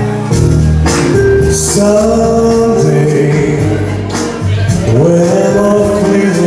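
Loud music with a singing voice.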